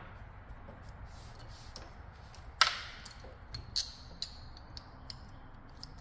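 Scattered light clicks and clinks of hand tools and metal parts being handled, the sharpest about two and a half seconds in and another near four seconds.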